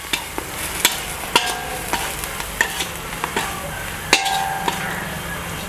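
Spoon stirring and scraping a frying masala of onions, peas and spice powders in a metal pan, with a steady sizzle underneath. Several sharper clinks of the spoon against the pan ring briefly; the loudest comes about four seconds in.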